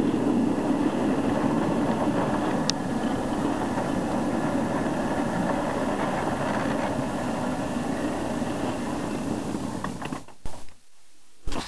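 Ride-on backyard-railroad locomotive running steadily under load, pulling cars of rock up a grade, its wheels rolling on the rails. The running sound cuts off about ten seconds in, followed by a few short clicks.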